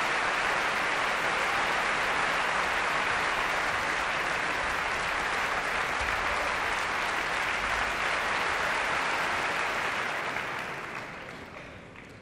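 Concert hall audience applauding, a dense, steady clapping that dies away over the last couple of seconds.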